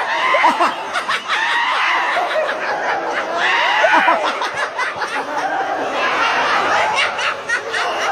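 Several people laughing and chuckling, their laughs overlapping with bits of talk.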